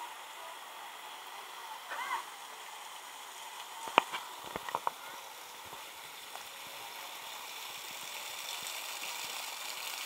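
Steady rush of flowing water from a waterfall and stream, with faint voices of bathers. About four seconds in comes one sharp click, followed by a quick cluster of smaller clicks.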